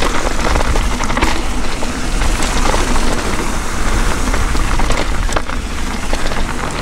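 Mountain bike rolling fast down a rough dirt trail: continuous tyre noise with many rattling clicks from the bike, and wind rumbling on the chin-mounted camera's microphone.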